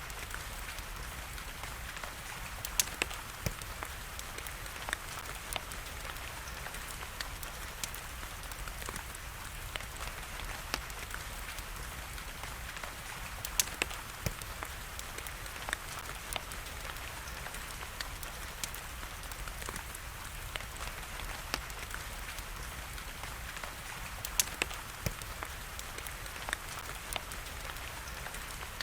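Steady rain hiss mixed with a wood fire crackling: scattered small clicks throughout and a few sharper pops.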